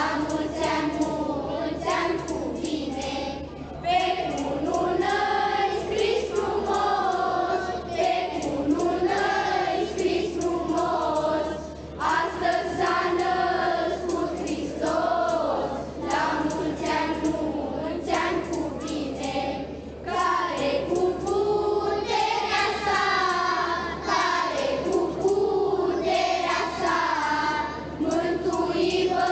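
Children's choir singing a Romanian Christmas carol (colindă) together, in sung lines with short breaks between them, over a steady low hum.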